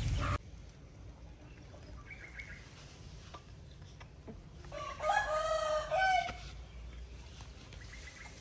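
A rooster crows once, a single drawn-out call of about a second and a half, roughly five seconds in.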